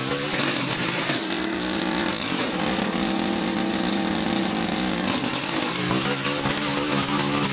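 Small petrol engine of a handheld yard power tool running with an unsteady, wavering pitch as throttle and load change; for a few seconds in the middle it settles to a steadier, duller note.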